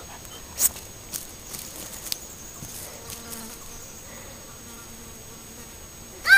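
A fly buzzing with a faint steady hum from about two and a half seconds in, stopping just before the end. A few sharp clicks come in the first two seconds, the loudest under a second in.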